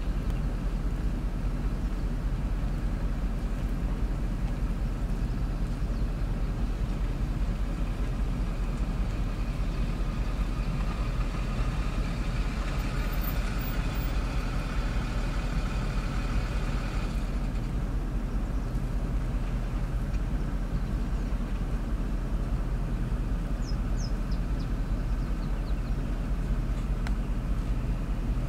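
Steady low rumble. A higher hiss rises over it partway through and cuts off suddenly about two-thirds of the way in, and a few short chirps come near the end.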